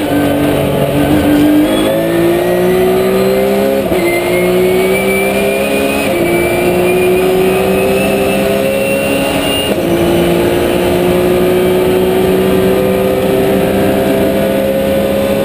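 Porsche 997 GT3 Cup's flat-six engine heard from inside the cockpit at full throttle, revs climbing through the gears with upshifts about two, four, six and ten seconds in, each gear pulling longer. After the last shift it pulls in a slow, steady climb to the end.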